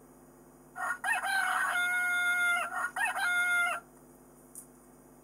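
Rooster crowing once: a long cock-a-doodle-doo of about three seconds, starting about a second in.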